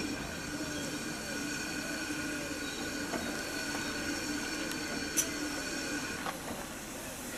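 GWR 1600 class pannier tank locomotive standing in steam, with a steady whistling hiss of escaping steam made of several thin tones that stops about six seconds in. A single sharp click comes a little before it stops.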